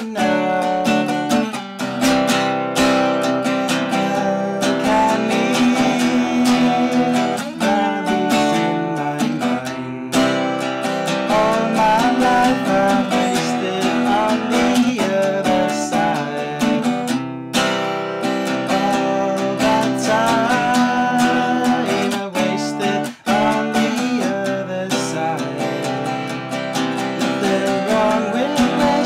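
Acoustic guitar playing a song.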